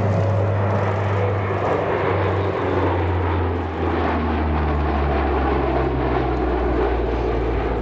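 JASDF Lockheed C-130H Hercules's four Allison T56 turboprop engines and propellers humming loudly as the aircraft passes low overhead. The low propeller hum drops in pitch in steps as it goes by.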